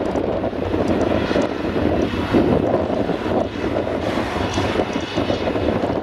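Claas Jaguar self-propelled forage harvester running steadily under load, chopping grass and blowing it into a trailer, with the tractor pulling the trailer running alongside.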